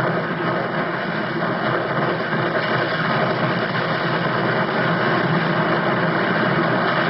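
Loud, steady rumble of the World Trade Center's south tower starting to collapse, heard at street level on a narrow-band, degraded recording. It has no distinct bang.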